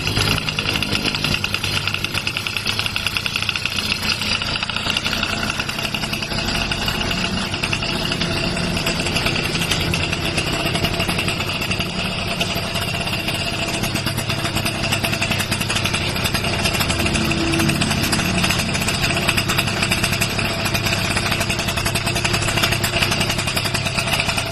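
Scooter engine running steadily through an aftermarket Malossi exhaust pipe.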